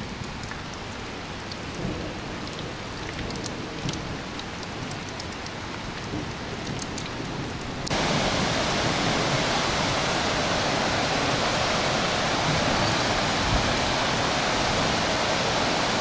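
Rain falling, with scattered drops ticking close by. About halfway through it cuts abruptly to a louder, steady rushing noise.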